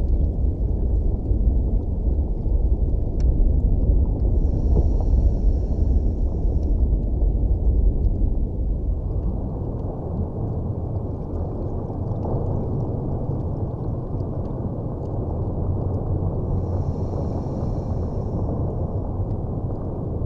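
Underwater sound picked up by a dive camera: a steady low rumble and bubbling that eases off a little about eight seconds in. Two hisses of two or three seconds each, about four seconds in and near the end, are like a scuba regulator drawing breath.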